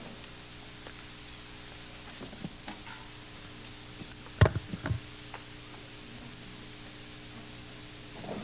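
Quiet hall ambience with a steady low electrical hum and a faint hiss. Two sharp knocks come about four and a half and five seconds in.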